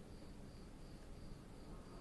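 Faint insect chirping: a short high chirp repeating evenly about three times a second, over low room hiss.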